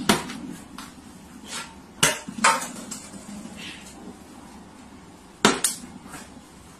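Plastic water bottle knocking on a hard shelf: a sharp clack as it is set down, then two clatters about two seconds in as it is knocked off and hits the floor, and two more knocks near the end as it is set down again.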